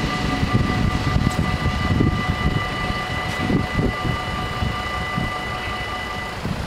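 Dutch automatic level-crossing bells ringing steadily while the half-barriers rise, cutting off near the end once the barriers are up. A low, irregular rumble runs underneath.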